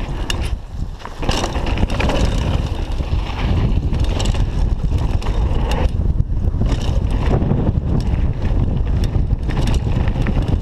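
Downhill mountain bike running fast down a hard-packed dirt trail. Wind buffets the chest-mounted camera's microphone over a steady rumble of tyres, with scattered clicks and knocks from the bike. It gets louder about a second in as the bike picks up speed.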